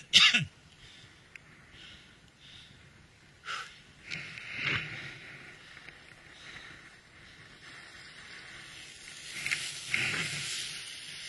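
Skis hissing and scraping over groomed, hard-packed snow as a skier makes turns. The sound comes in bursts: a loud one right at the start, more about three to five seconds in, and again near the end.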